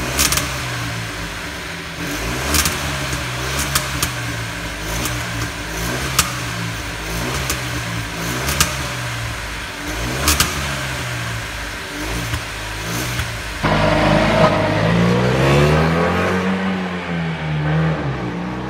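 Exhaust note of a Fiat Panda 4x4 Cross's 0.9 TwinAir turbo two-cylinder engine, heard at the tailpipe, running with the revs rising and falling repeatedly, with a few sharp clicks. It gets louder about fourteen seconds in, with the revs swinging up and down again.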